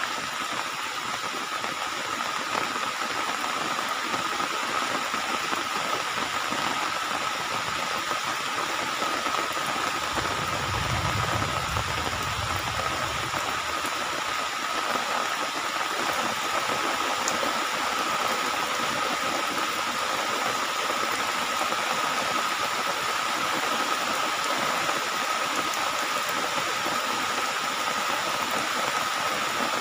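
Heavy tropical rain pouring steadily, an even hiss with a steady high-pitched hum running under it. A brief low rumble comes about ten seconds in.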